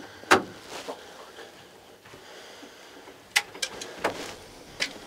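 A few sharp clicks and knocks with soft rustling: close handling noise, one loud click early and a quick cluster of clicks later.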